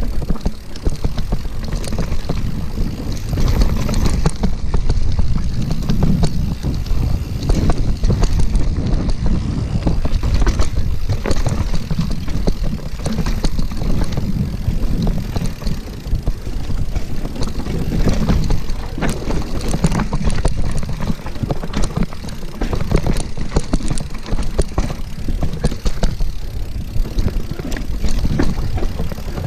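Mountain bike riding fast down a dirt singletrack, heard from a camera on the bike or rider: a steady low rumble of wind and tyres on the dirt, with the frame and components rattling and knocking over the bumps throughout.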